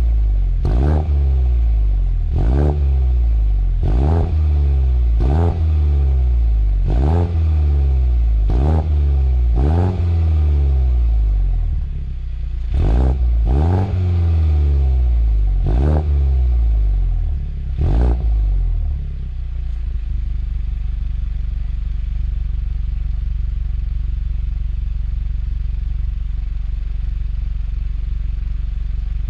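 Car engine with a newly fitted exhaust being blipped on the throttle over and over, about once a second, the revs falling back after each blip. About 19 seconds in the blipping stops and the engine settles to a steady idle.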